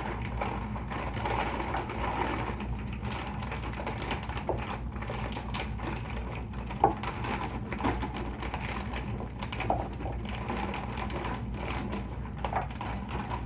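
Frozen mango and pineapple chunks being shaken out of a plastic bag into a Vitamix blender jar: irregular clicks and rattles as the pieces drop, with the bag crinkling, and one sharper knock about seven seconds in.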